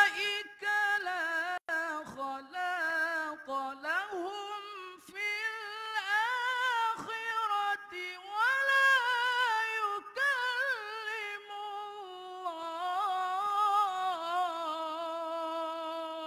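A man chanting Quranic recitation (tilawah) unaccompanied, one voice in a high register weaving ornamented melismatic turns, with only brief breaks between sustained, gliding notes.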